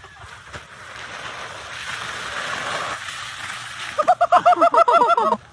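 A steady rushing hiss grows for about three seconds and breaks off. Near the end comes a rapid run of high-pitched laughter, about eight quick 'ha's a second, lasting just over a second.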